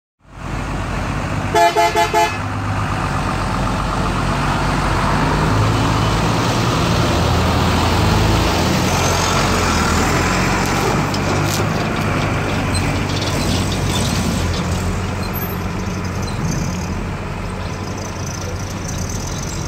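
A coach horn sounds four short blasts, then coach bus engines run steadily as the buses pull away, the rumble heaviest for a few seconds after the honks.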